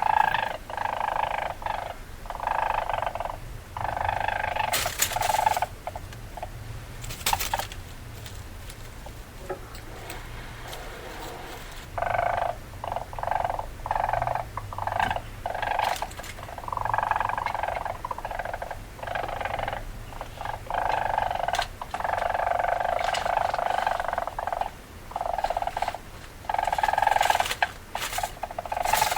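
Weasel calling in repeated chattering bursts of about a second each, with short gaps and a few sharp clicks between them.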